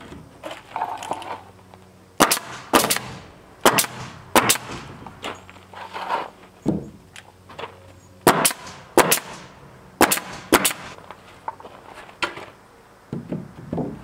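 Pneumatic coil nailer firing nails into rough sawn wooden siding boards: a series of sharp shots, mostly in pairs about half a second apart, with quieter knocks of the boards being handled in between.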